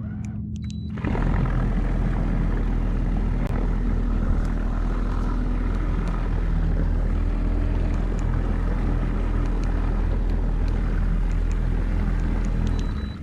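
Small boat under way: its motor running steadily with a low rumble, joined by a loud rush of wind and water about a second in that stops just before the end.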